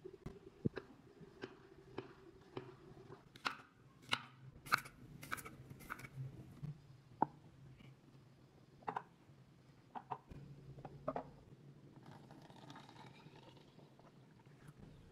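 Knife cutting garlic cloves on a wooden cutting board, then the slices being dropped into a plastic bottle: scattered sharp clicks and taps. Near the end, water is poured into the bottle for a couple of seconds.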